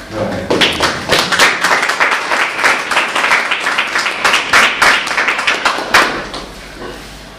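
Audience applauding, a dense patter of hand claps that sets in right after the speech ends and fades out near the end.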